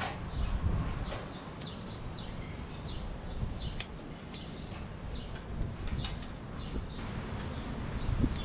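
Wire strippers working on thin electrical wires as they are stripped and spliced, giving sporadic light clicks and handling rustle over a low rumble, with a few faint high chirps in the background.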